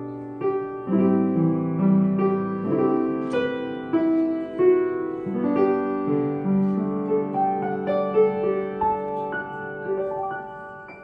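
Solo piano playing a slow passage, single notes struck one after another over held bass notes so that they ring together, dying away near the end.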